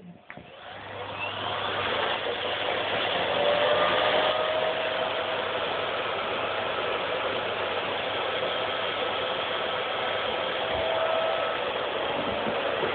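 Vacuum cleaner switched on, its motor whining up to speed over the first two seconds, then running steadily.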